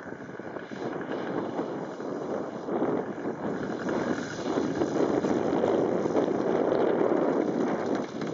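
Gusty wind buffeting the microphone, getting louder through the second half. Under it is the faint drone of a large model plane's DLE 111 twin-cylinder two-stroke petrol engine as the plane comes in to land.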